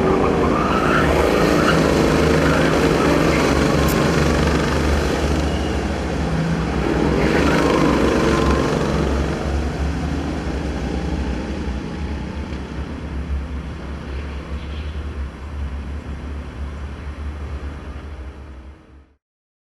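Go-kart engines running on the track, with karts passing at speed: their engine pitch rises and falls about a second in and again around seven seconds in. The engine sound then grows thinner and cuts off near the end.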